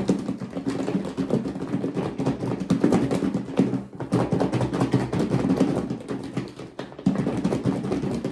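Nuggets coated in hot sauce being shaken hard in a container: a fast, continuous rattle and thud of the pieces knocking against its sides, stopping just at the end.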